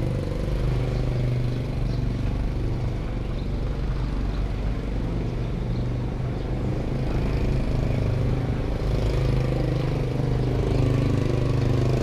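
Small motorcycle engine running steadily, getting louder toward the end as the bike comes close on the test course.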